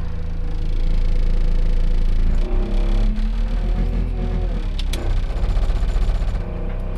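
Manitou telehandler's diesel engine running hard under load, heard from inside the cab, as the machine sits bogged down in soft, muddy ground. The engine gets louder about a second in, shifting whining tones come and go midway, and there is a sharp click near the five-second mark.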